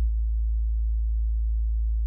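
Low bass sine test tone played through a loudspeaker: one steady deep note held without change.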